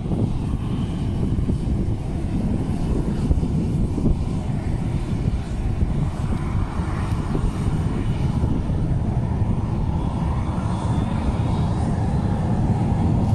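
Boeing 737 jet engines running with a steady rumble as the airliner moves on the runway.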